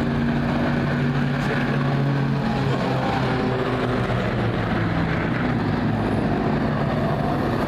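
Several vehicle engines running together in a steady drone, with more than one engine note at once.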